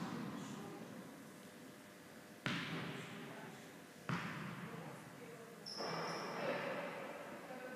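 Tennis ball struck by racket and bouncing on an indoor hard court, each sharp pop echoing around the large hall: one at the start, then two about a second and a half apart. Near the end comes a brief high squeak with a rustle.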